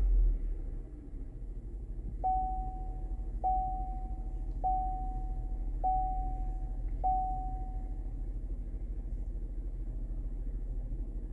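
The Chevrolet Equinox's warning chime sounds five times, evenly spaced about a second apart, each a single short tone that fades quickly, over a steady low hum from the vehicle. A brief low thump comes right at the start.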